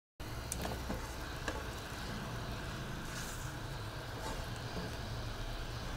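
Curry masala cooking in a pan over a gas flame set medium-high: a steady low hum and hiss, with a couple of faint clicks.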